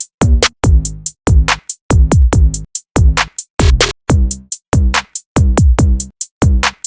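Electronic music with a drum-machine beat: punchy kick drums and crisp hi-hat ticks in a steady, fast pattern.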